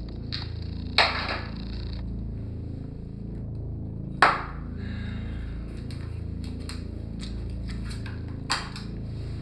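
Three sharp bangs, about a second in, four seconds in and near the end, the middle one loudest and the last weakest, each dying away quickly over a low steady hum.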